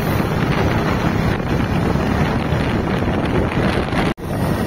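Wind buffeting the microphone while travelling in a moving vehicle: a steady, loud rush of noise that cuts out for an instant about four seconds in.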